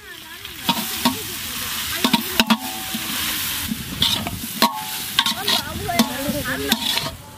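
A metal spatula scrapes and knocks against the sides of a large metal pot as spiced potatoes and cauliflower are stirred, over a steady sizzle of the vegetables frying in oil and ghee. There are several sharp clinks, a few of which ring briefly.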